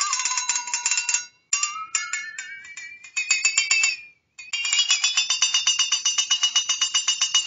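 Flexatone shaken so its beaters rattle quickly against the flexed steel blade, giving a wobbling metallic tone. The pitch falls, cuts off briefly, then glides upward, and after a second short break it holds a high note struck about seven times a second until it stops near the end.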